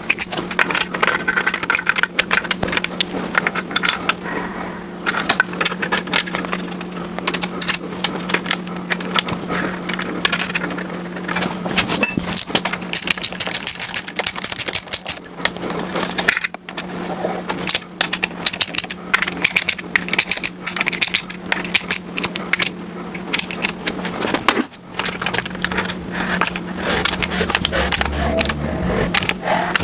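Hand tools and metal engine parts clicking and clinking during engine assembly, with a run of rapid clicks partway through, over a steady hum.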